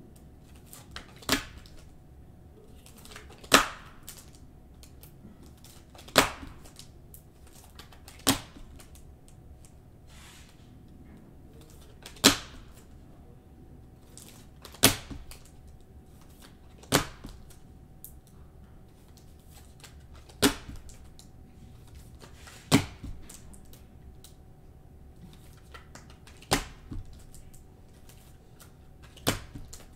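About a dozen sharp clicking snaps, one every two to four seconds at an uneven pace, over a faint steady hum.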